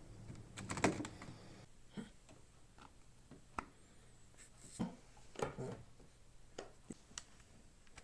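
Scattered light clicks and taps, like small objects being handled, over a faint low hum.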